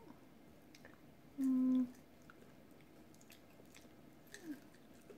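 Slow chewing and biting on a chicken nugget with new dentures: soft squishy mouth sounds and small scattered clicks. About a second and a half in comes a short hum at a steady pitch, the loudest sound here, and a smaller falling hum follows near the end.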